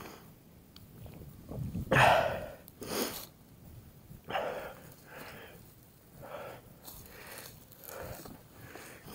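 A mountain biker's heavy breathing while riding: hard, noisy breaths about one a second, the loudest about two seconds in.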